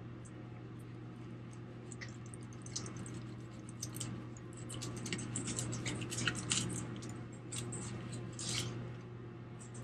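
Fillet knife sliding and scraping between skin and flesh of a northern snakehead fillet on a plastic cutting board, in a run of wet, scratchy little cuts that grows busier from about two seconds in. A steady low hum sits underneath.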